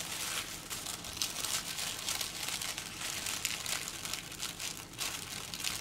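Thin tissue paper crinkling steadily under the fingers while a sticker seal is peeled off it.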